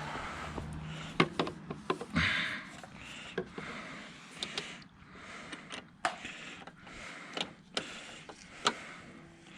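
Scattered light clicks and knocks of a water hose and its fittings being handled and connected, with a short hiss about two seconds in.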